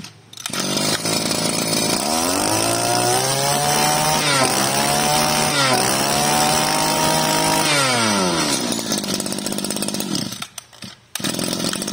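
Small 20cc Mitsubishi two-stroke brush-cutter engine starting and being revved by hand at the carburettor. It runs up to high revs twice, with a brief dip about four seconds in, then settles back to idle around eight seconds. It drops out for under a second near the end, then idles again.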